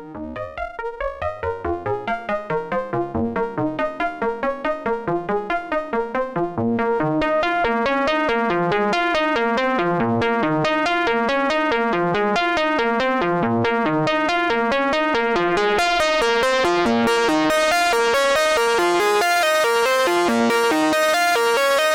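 Behringer 2600 analog synthesizer playing a fast, repeating run of short pitched notes. The notes pulse at first, blend into a steadier stream about six seconds in, and the tone grows brighter and buzzier in the last few seconds.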